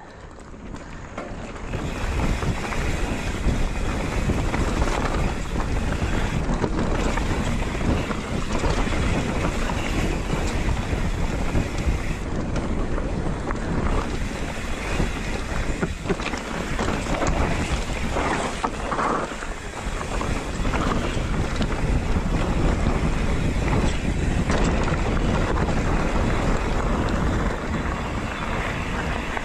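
Steady rush of wind on the helmet or body camera's microphone of a mountain biker riding down a dirt singletrack, building up over the first two seconds, then holding steady.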